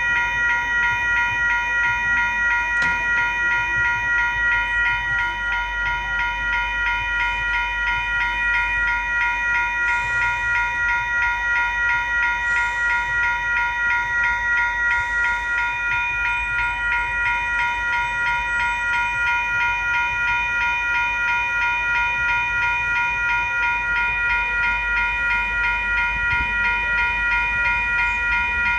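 Railway level crossing warning bells ringing continuously in a fast, even, repeating ding, the sign that the crossing is active for an approaching train.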